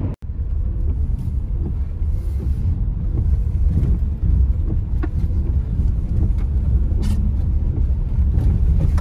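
Dacia Duster ECO-G driving: a steady low rumble of engine and tyre noise, with a few faint clicks.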